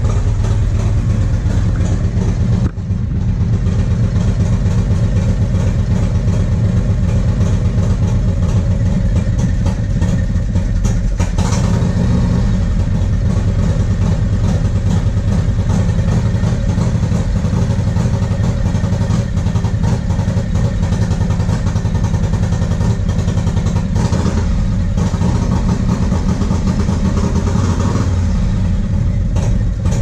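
1994 Harley-Davidson Road King's 80-cubic-inch Evolution V-twin running through a 2-into-1 exhaust, worked on light throttle, with a brief dip about three seconds in. The engine stumbles and hesitates on light throttle, a misfire the owner traces to a fault in the CV40 carburetor.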